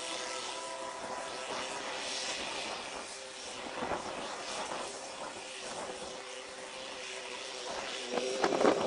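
Small narrow-gauge diesel locomotive running toward the listener, its engine a steady drone, with a brief louder burst near the end.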